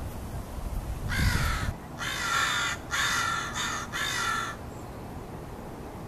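American crows cawing: about five harsh caws in quick succession, running together between one and four and a half seconds in.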